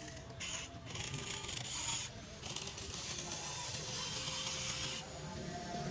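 Whirring of the small electric motors and gearing of a radio-controlled model excavator as it works, over faint music.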